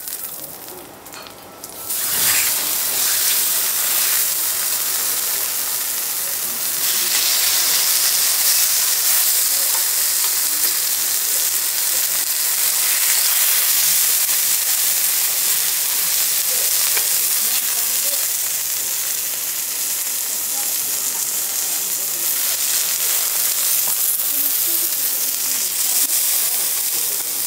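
Beef steak searing and sizzling on a hot teppanyaki steel griddle. The sizzle starts suddenly about two seconds in, grows louder a few seconds later and then holds steady.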